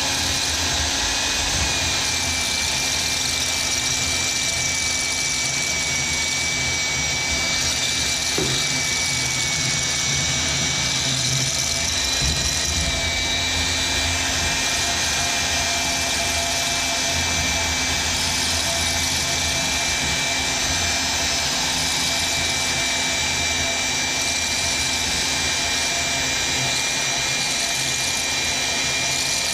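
Milwaukee portable band saw running steadily as its blade cuts slowly down through a metal tube, a continuous motor hum with a steady high whine from the blade.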